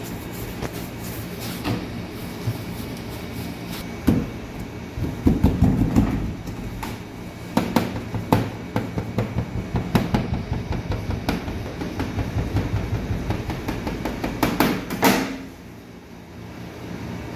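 A metal bench scraper knocks against a stainless steel table as it cuts notches into a rope of dough. From about four seconds in it strikes in a quick run of several knocks a second, stopping about fifteen seconds in, over a steady background hum.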